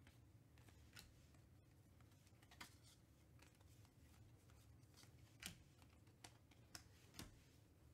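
Near silence with a few faint, scattered clicks and light handling sounds.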